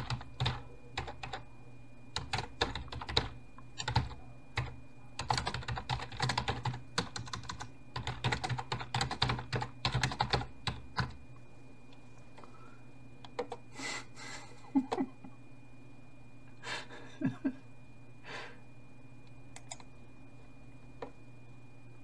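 Typing on a computer keyboard, rapid key clicks in quick bursts for about the first eleven seconds, then a few scattered clicks, over a steady low hum.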